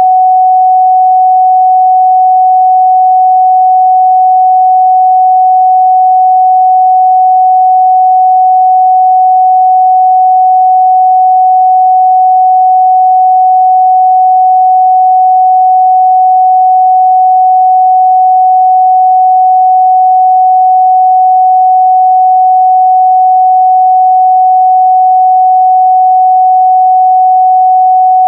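A steady, loud 744 Hz sine-wave test tone, one pure pitch held without change.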